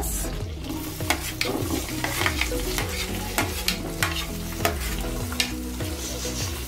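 Chopped onions sizzling as they go into hot butter in a nonstick pan. Irregular clicks and scrapes come from a spoon and a plastic slotted spatula stirring against the pan.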